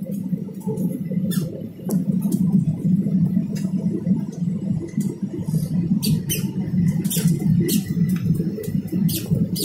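Airliner cabin noise on the descent to land: a steady low rumble of engines and airflow heard from inside the cabin, with scattered sharp clicks and ticks over it, more of them in the second half.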